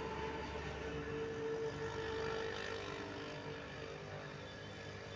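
John Deere 5310 tractor's diesel engine idling steadily, a low even pulse under a constant hum.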